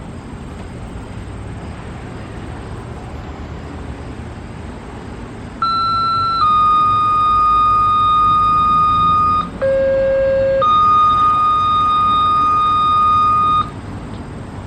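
Fire-department two-tone paging (siren activation tones) over a Whistler radio scanner, after several seconds of steady background noise: a short higher tone stepping down to a long steady tone of about three seconds, then a short low tone stepping up to the same long tone. The tones signal that the siren is about to be set off.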